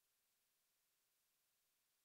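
Near silence: digital silence between synthesizer preset demos.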